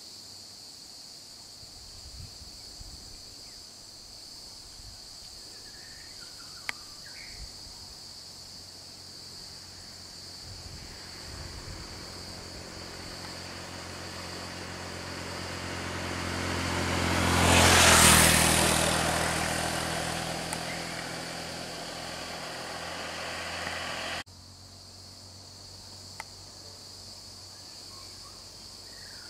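A road vehicle passing close by, its engine and tyre noise building over several seconds to a peak and then fading, before breaking off suddenly. Underneath, a steady high-pitched insect drone.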